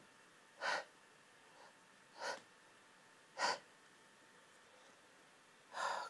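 Three short, sharp breaths, a second or so apart, from a person in a sneezing fit, between sneezes. A louder breath comes near the end.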